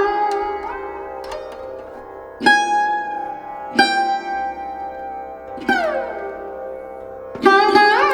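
Background music: a plucked string instrument plays slow, widely spaced notes that ring on, with sliding pitch bends, one falling and a few rising near the end.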